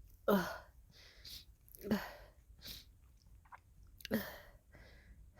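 A woman sneezing three times in a row, near the start, about two seconds in and about four seconds in, with short breaths and sniffs between the sneezes.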